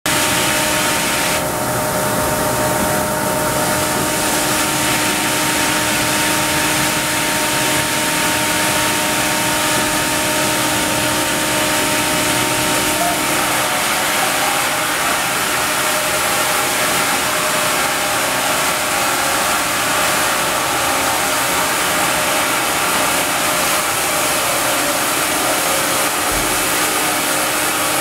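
Sawmill band saw headrig and its log carriage machinery running: a loud, steady mechanical drone with a few constant hum tones.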